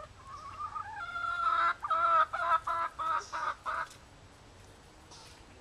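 A hen calling: a drawn-out, wavering call that grows louder, then breaks into a quick run of short, loud clucks that stops about four seconds in.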